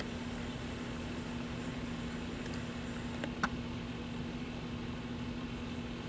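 Steady low mechanical hum of a running motor or fan, with two faint quick ticks about three and a half seconds in.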